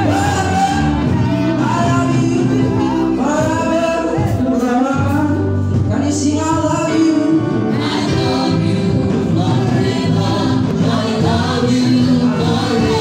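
Live gospel music: a lead singer and backing vocal group singing over keyboard accompaniment, amplified through a church PA.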